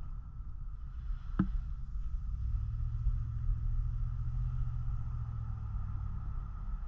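Ram pickup truck driving slowly, heard from inside the cab: a steady low rumble of engine and tyres on the road, with a single sharp knock about a second and a half in.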